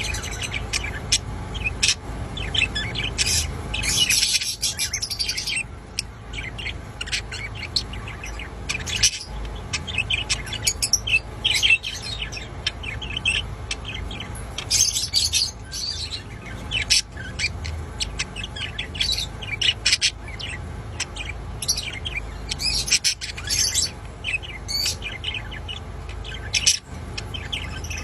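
Lutino budgerigar chattering and warbling in a continuous stream of quick high chirps, with short pauses, over a low steady hum. Budgie owners take this kind of chatter for a contented bird.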